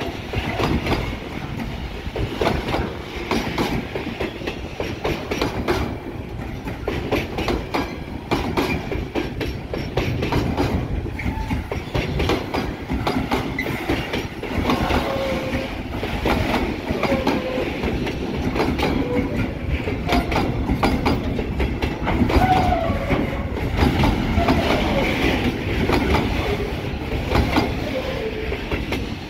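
Loaded container freight wagons rolling past as the train pulls away, their wheels clacking over the rail joints with short wheel squeals now and then. The end of the train passes near the end.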